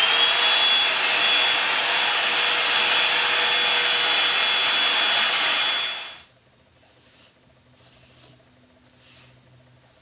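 Revlon One Step Hair Dryer & Volumizer running: a steady rush of air with a high motor whine. It stops suddenly about six seconds in.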